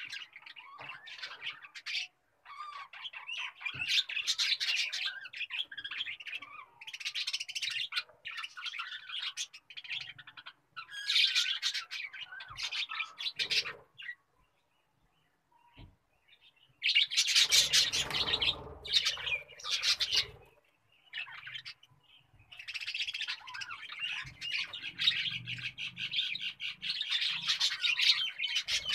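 Birds chirping and squawking in busy, broken bursts, with a pause of about two seconds near the middle.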